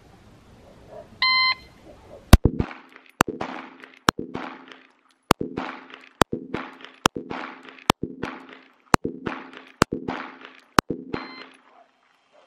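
A shot timer beeps once, then a Glock 19 Gen 5 9mm pistol fires ten shots at a steady pace of about one a second, each shot trailing off in a short echo.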